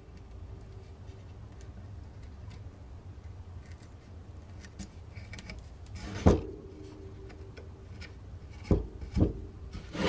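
Small blade scraping dried Gorilla Glue off a pine plug in a carved wooden decoy head: faint scrapes and ticks, broken by a sharp wooden knock with a short ring about six seconds in and two more knocks near the end.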